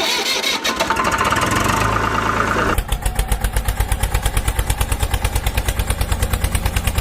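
A motor running with an even, rhythmic chugging of about ten beats a second that settles in about three seconds in after a noisier start.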